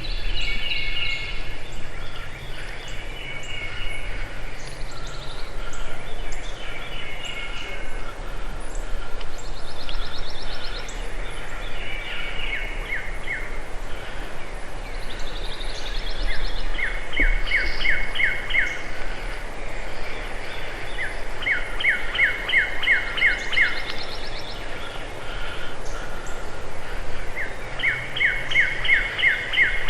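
Songbirds singing in a spring woodland. One bird repeats a short phrase of rapid, falling whistled notes every few seconds, with other chirps and trills between, over a steady low background rumble.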